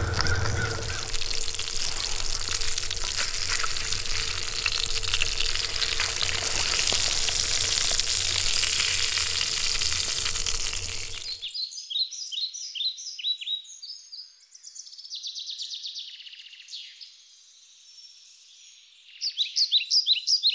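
Salmon frying in oil in a carbon steel skillet over campfire coals: a steady sizzle with crackles. It cuts off abruptly about eleven seconds in, after which birds sing in repeated short chirping phrases.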